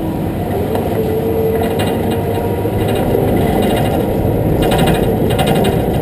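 Truck rolling slowly, its engine and tyre noise picked up close by a camera mounted on the truck's side. A fast rattling clatter comes and goes from about one and a half seconds in, as it runs onto rough concrete.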